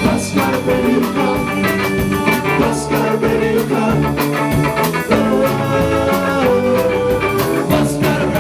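Live rock band playing an instrumental stretch: electric guitars, bass guitar and drum kit together, loud and steady with a regular drum beat.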